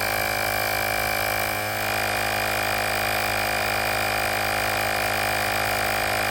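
Cordless rechargeable tyre-inflator air compressor running steadily with a buzzing hum as it pumps up a fat bicycle tyre toward its preset 21 PSI, before its automatic shutoff.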